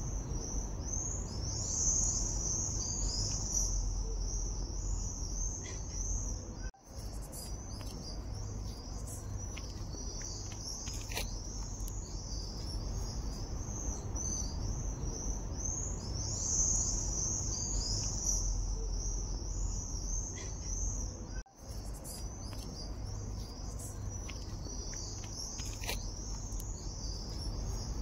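Insects chirping in a dense, steady, high-pitched chorus over a low background rumble. The sound cuts out for an instant twice.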